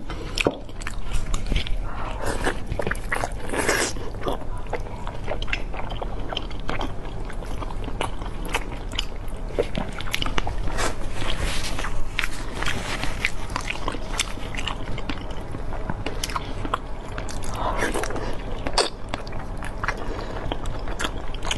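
Close-miked biting and chewing of braised beef tendon, with many small, sharp mouth clicks throughout.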